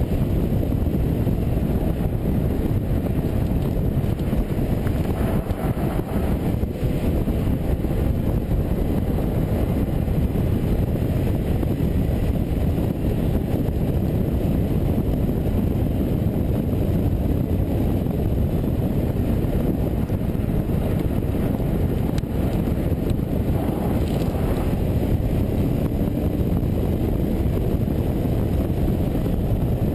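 Car driven at speed on a race track, heard from a camera mounted on its flank: steady wind rush over the microphone mixed with tyre and engine noise, the engine pitch faintly rising and falling underneath.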